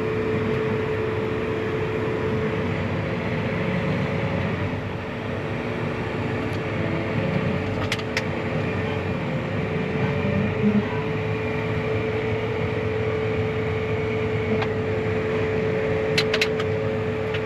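A nearby engine idling steadily with a constant whine, with a few light clicks about eight seconds in and again near the end.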